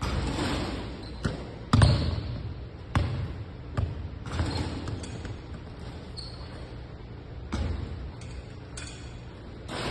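Basketball bouncing on a hardwood gym floor, about ten bounces at uneven intervals, the loudest a little under two seconds in, each ringing briefly in the large hall.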